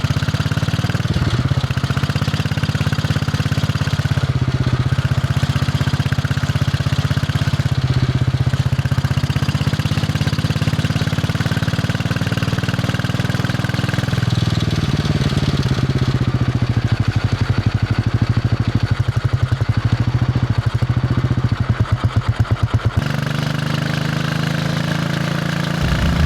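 Royal Enfield Bullet 500's single-cylinder engine running under way, its exhaust thumping steadily. The revs rise about halfway through, and near the end the beat slows into distinct pulses before the engine note drops.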